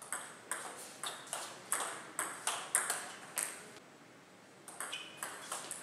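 Celluloid-type table tennis ball clicking off rubber paddles and the tabletop in a fast rally, about three or four hard ticks a second. After a pause of about a second, a fresh series of clicks starts near the end.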